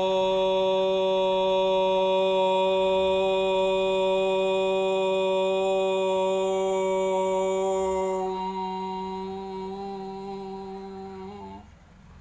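A man chanting one long Om, held on a single steady low pitch on one drawn-out breath. About eight seconds in, the open vowel closes into a hummed "mmm" that fades and stops shortly before the end.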